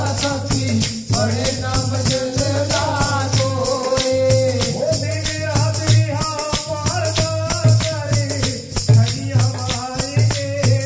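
Men singing a devotional hymn into microphones, the older and younger singer taking turns with the lines, over a shaken rattling percussion beat of about four strokes a second.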